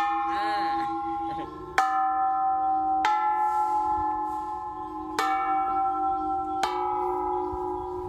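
Temple bells struck with a stick, five strikes in turn, each left to ring on with a long, slowly fading tone.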